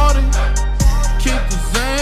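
Music with sung vocals that glide in pitch over a deep, sustained bass, with a sharp bass hit just under a second in.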